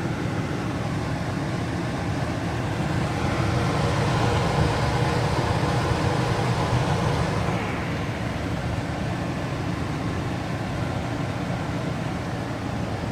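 Lennox G41 gas furnace running: a steady mechanical hum and whoosh from its motors and burners, louder for a few seconds in the middle.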